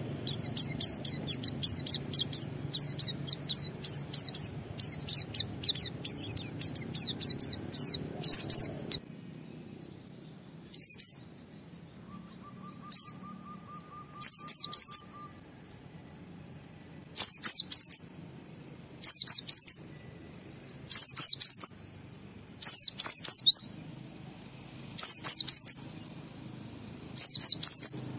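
White-eye (pleci) singing: a fast, unbroken run of high, thin chirps for about nine seconds, then short bursts of song about every two seconds.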